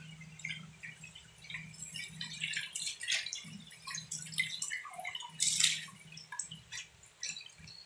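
Rice being washed by hand in a metal pot under a running kitchen tap: water pouring in while a hand swishes and rubs the grains, with irregular splashes and drips and a louder splash about five and a half seconds in. A steady low hum runs underneath.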